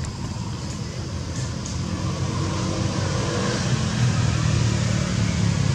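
Steady low mechanical rumble with a faint hum, holding even throughout.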